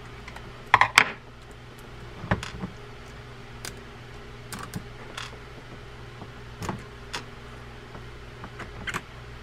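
Scattered small metallic clicks and taps as steel screws are backed out of a Daiwa Saltist 30HA baitcasting reel's side plate with a screwdriver and set down on a wooden bench, the loudest pair of clicks about a second in.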